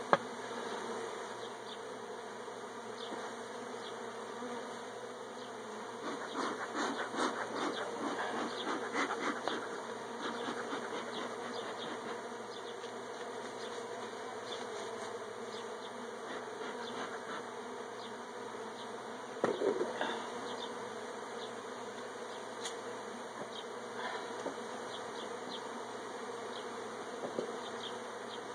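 Honeybees from an opened hive buzzing steadily in the air around the comb. Scattered knocks and clatter sound over the buzz, with a run of them about six to ten seconds in and the loudest knock about twenty seconds in.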